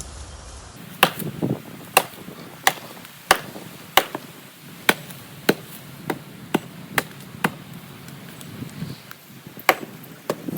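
A hammer striking wood repeatedly: about a dozen sharp blows at roughly one every half-second to second, then a pause of about two seconds before two last blows near the end.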